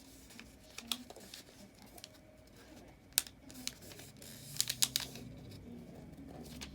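A sheet of paper being handled and folded, with scattered crinkles and sharp taps as it is flipped over and creased, including a quick cluster of crackles about four and a half seconds in.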